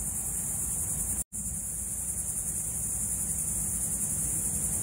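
Steady high-pitched insect chorus with a low rumble underneath. The sound drops out for an instant about a second in.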